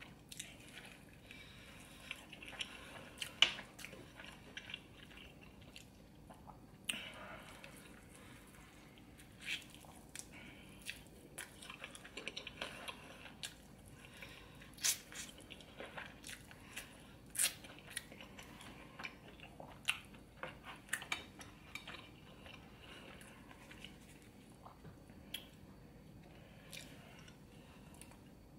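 A person biting into and chewing a burger: wet mouth noises with many short, sharp clicks scattered throughout.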